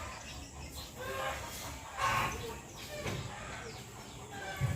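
Chickens clucking, a series of short calls, loudest about two seconds in. A dull low thump comes just before the end.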